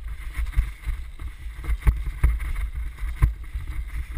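Wind rumbling on a helmet-mounted action-camera microphone while moving, with irregular sharp knocks and thumps every half second to second or so.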